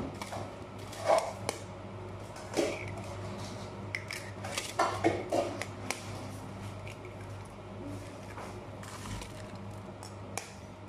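Raw eggs being cracked open with a spoon over a bowl: irregular sharp taps and crackles of shell breaking, over a low steady hum.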